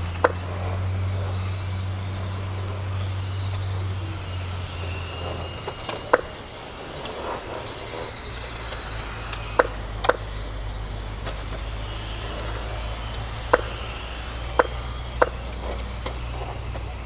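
Electric radio-controlled mini cars racing on an asphalt track: a faint wavering high whine from the motors, with several sharp clicks and knocks scattered through, over a steady low hum.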